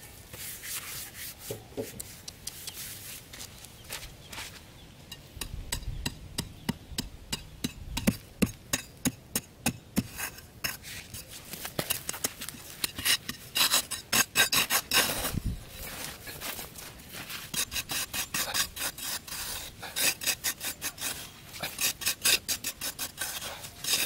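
Metal spade blade scraping and chopping into dry, sandy soil in rapid repeated strokes.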